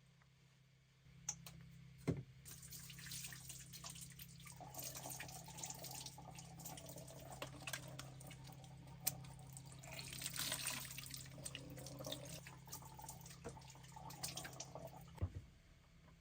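Water running from a tap and splashing into a sink, over a low steady hum; it starts about a second in and shuts off near the end, with a click at each end.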